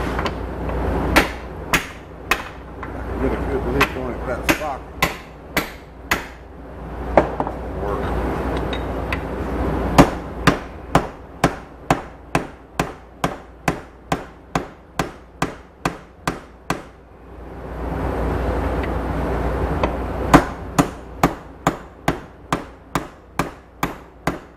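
Hammer blows on the steel U-joint yoke of a bush hog driveshaft: a few scattered strikes, then two long runs of steady blows at about two a second, with a steady rush of noise in the pauses between the runs.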